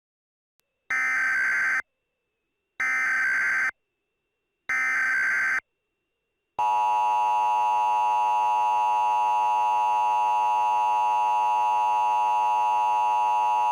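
Emergency Alert System audio: three even bursts of SAME digital data screech, then a loud, steady two-tone attention signal that starts about six and a half seconds in and holds.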